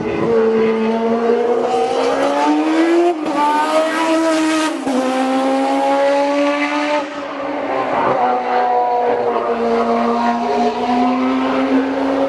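Classic BMW racing car engines at high revs on the circuit, the note climbing, dropping at each gear change and holding steady between shifts.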